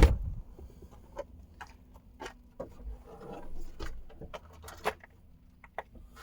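A knock right at the start, then scattered light clicks and taps as small parts and tools are handled.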